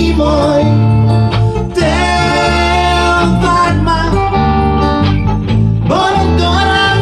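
A small band playing a song live: electric keyboard, electric bass guitar and guitar, with singing over them.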